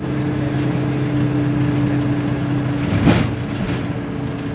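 Bus engine and road noise heard from inside the cabin at highway speed: a steady drone with a held hum. About three seconds in there is a brief louder rush, after which the hum fades.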